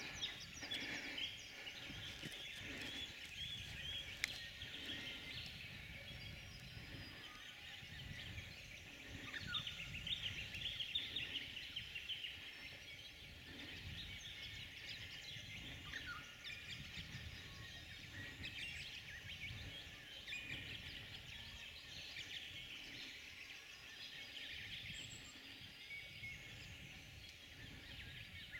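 Many birds chirping and calling at once, a dense continuous chorus of short high notes, with a faint low rumble underneath.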